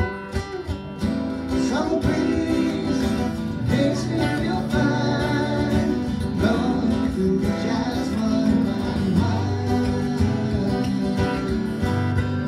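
Two acoustic guitars strumming chords, with a harmonica playing a wavering, bending melody over them from about two seconds in.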